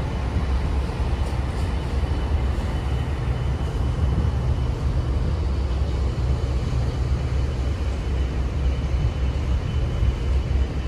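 Sea wind rumbling steadily on the microphone at the harbour's edge, over a low background of boat engines and moving water.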